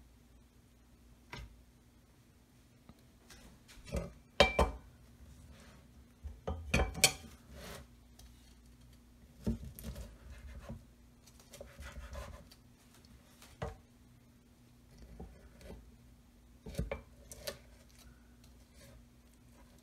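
A chef's knife and a wooden cutting board: irregular sharp knocks as the blade comes down on the board, with short scraping and crunching as it cuts through the baked pastry crust of a blueberry galette. The two loudest knocks come about four and a half and seven seconds in, over a faint steady hum.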